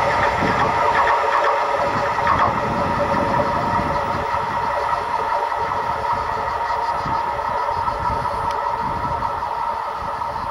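Freight train (a fuel train) rolling by, with a steady engine drone over a rough rumble, slowly fading toward the end.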